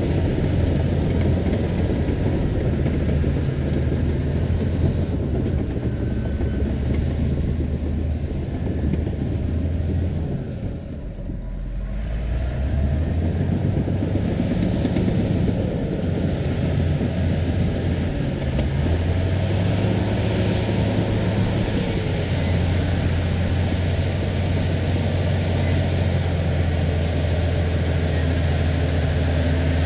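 Earthmoving machine's engine running steadily while pushing topsoil. About eleven seconds in it eases off and its note drops, then it picks back up.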